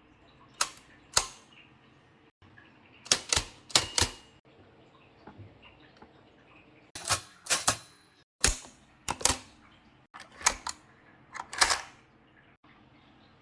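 Vintage Remington Portable manual typewriter being typed on: about sixteen sharp key strikes, the typebars snapping against the platen one at a time in small irregular clusters with pauses between.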